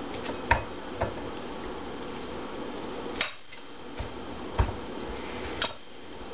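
Kitchen knife cutting through a block of Spam and knocking on the plate beneath it: about six sharp clicks at irregular intervals, over steady background noise.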